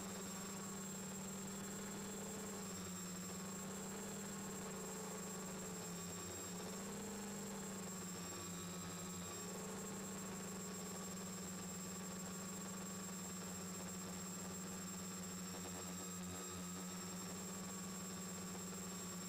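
The four Turnigy D2830 1000KV brushless motors and propellers of an X550 quadcopter in flight, heard from the camera on the drone's own frame. They make a steady hum whose pitch wavers slightly now and then.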